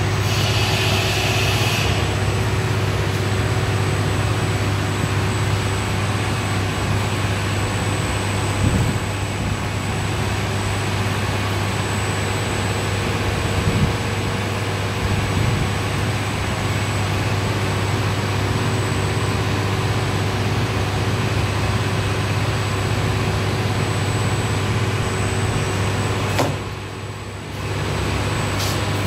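A steady machine hum with an even rushing noise, which dips briefly near the end, and a couple of faint small knocks from hand tools on the bottle.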